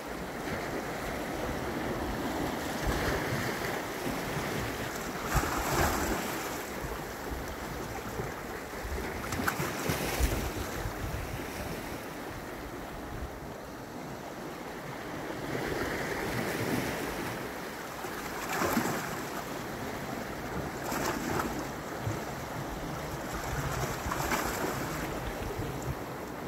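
Small sea waves washing in over rocky shore ledges, swelling and falling back every few seconds, with wind buffeting the microphone.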